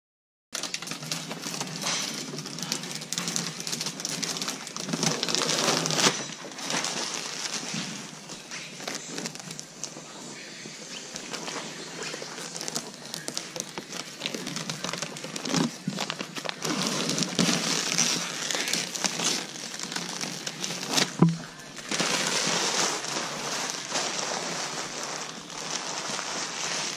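Protective plastic film being peeled off a tractor cab door and crumpled in the hands, a continuous crackling and crinkling with scattered clicks and a few louder knocks.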